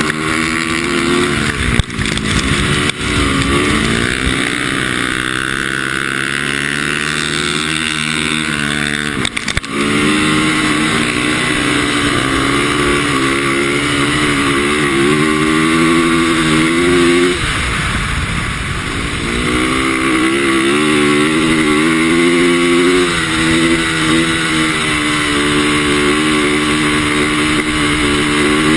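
450cc four-stroke single-cylinder dirt bike engine revving up and easing off over and over, its pitch climbing and falling as the rider works the throttle. Near two-thirds of the way through it drops right down off the throttle before pulling hard again. A few sharp knocks come in the first ten seconds.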